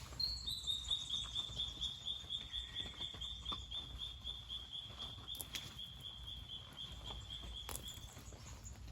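A bird singing one long trill of rapid repeated notes, about five a second, falling slightly in pitch over about eight seconds. Underneath is a low steady rumble, with a few faint ticks.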